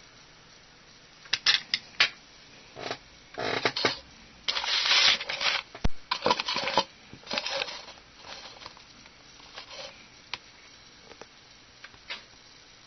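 Close handling noise: a run of clicks and rustling scrapes as plastic robot parts and a small circuit board with wires are picked up and handled, loudest through the middle, then a few faint ticks near the end.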